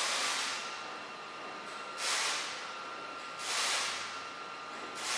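A single strand being drawn out of woven fiberglass cloth to leave a straight cutting line: a dry hissing scrape that swells and fades in repeated pulls, about every one and a half to two seconds.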